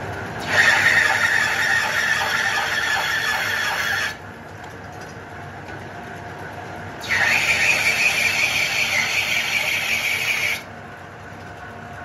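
Lathe cutting an internal thread into a plastic pipe: the tool scrapes with a high squeal in two cuts of about three and a half seconds each, one starting about half a second in and the other about seven seconds in. Between the cuts the lathe runs more quietly.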